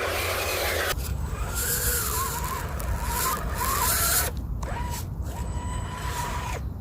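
RC construction machinery at work: a steady low rumble with a motor whine that rises and falls. The sound changes abruptly about a second in and again past four seconds.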